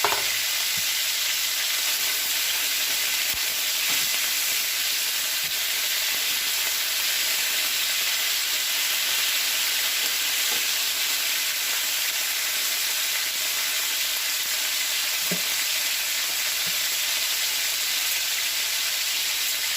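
Skin-on chicken thighs sizzling in a frying pan: a steady, even hiss, with a few faint knocks now and then.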